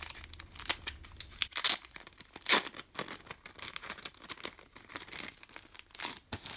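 Clear plastic wrapping being peeled and torn off a spiral-bound desk calendar, crinkling irregularly, with louder rips about a second and a half and two and a half seconds in and again near the end.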